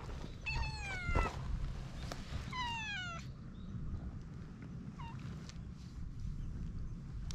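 Domestic cat meowing twice, each call falling in pitch, the first about half a second in and the second near three seconds, then a short third call around five seconds in.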